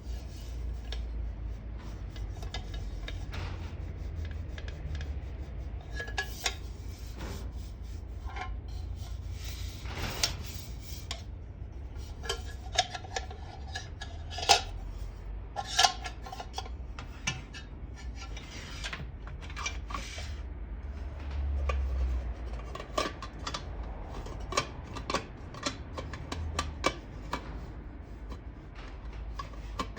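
A BUNDOK 2-gō hangō mess tin being handled: its metal pot and lids clink, knock and rub together, with scattered sharp clicks and a few short ringing knocks.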